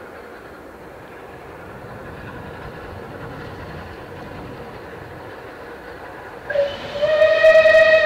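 Bulleid Rebuilt Battle of Britain class steam locomotive approaching under power, its running sound slowly growing louder. About six and a half seconds in it sounds a loud single-note steam whistle that rises slightly at the start and is still blowing at the end.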